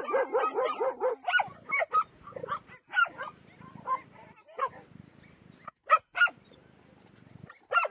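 Young dogs yipping, whining and barking in excited greeting. There is a quick run of high yelps in the first second, then scattered whimpers and short barks, with two loud sharp barks about six seconds in.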